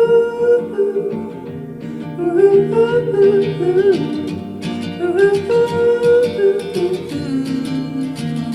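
Music played back through compact powered computer speakers as a sound demo: a melody of held, wavering notes over plucked acoustic guitar.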